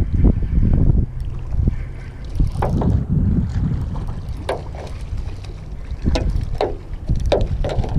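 A hooked fish thrashing and splashing at the surface close to the bank, with a string of separate splashes starting about two and a half seconds in. Wind rumbles on the microphone throughout.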